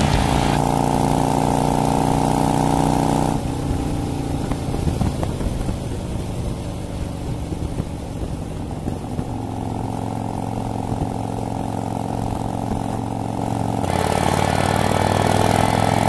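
Harley-Davidson V-twin motorcycle engine on the move: running hard for the first three seconds, dropping to a quieter, lower note as the throttle eases, then pulling up again with rising pitch near the end. Heard muffled, from a phone carried in the rider's backpack.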